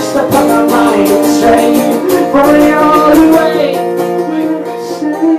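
A man singing live while strumming a guitar. The strumming thins out about three and a half seconds in, leaving held chord notes ringing.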